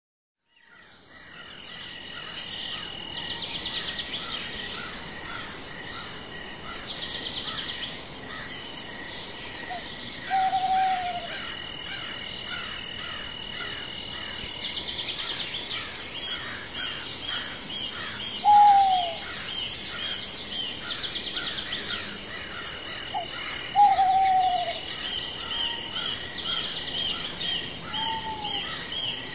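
Forest ambience: a steady high insect drone with bird chirps and buzzy trills, fading in over the first second or two. A short falling hoot-like call, the loudest sound, comes four times.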